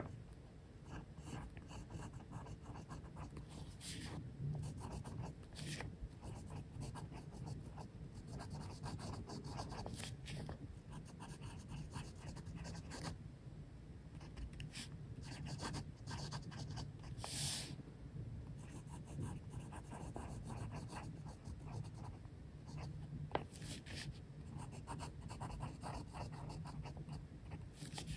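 A fine-nibbed Montblanc Writer's Edition Sir Arthur Conan Doyle fountain pen scratching lightly across paper in quick cursive strokes, the nib giving a little feedback. A faint steady low hum lies beneath, and there is one louder, longer scrape about two-thirds of the way through.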